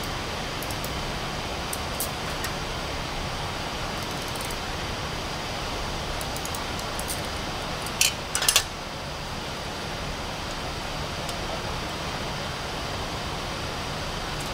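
Steady background hiss with a brief cluster of sharp clicks about eight seconds in, and a few fainter clicks earlier.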